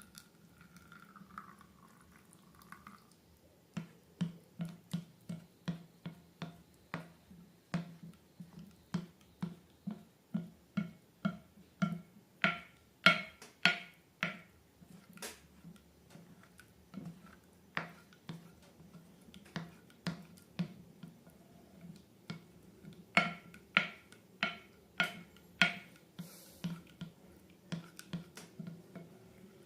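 Slime being squeezed and pressed, making a run of sharp, sticky clicks and pops at about two a second, louder in two stretches.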